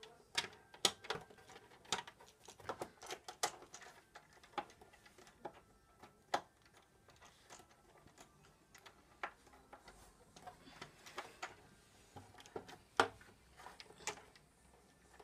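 Irregular light clicks and taps of the burglar alarm panel's plastic cover being handled and fitted into place, with one sharper knock about 13 seconds in.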